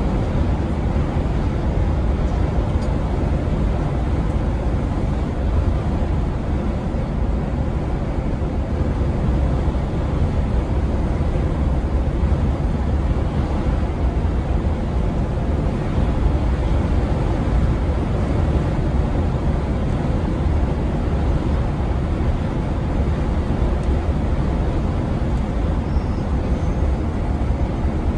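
Mercedes-Benz Travego coach cruising at motorway speed, heard inside the cabin at the front: a steady low drone of engine and road noise that never changes.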